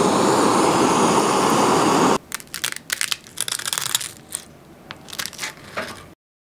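Kitchen blowtorch blowing steadily as it caramelizes the sugar on top of a pudding, cutting off abruptly about two seconds in. Then a wooden spoon cracks through the brittle caramel crust in a run of crisp crackles.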